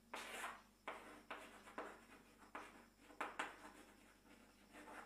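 Chalk writing on a chalkboard: a run of short, faint strokes, about ten of them, thinning out after three and a half seconds, with a couple more near the end.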